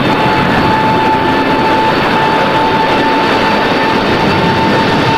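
Jet airliner engine sound effect, the kind of sound a toy airplane plays: a loud, steady rush of noise with a steady whine. It starts and cuts off abruptly.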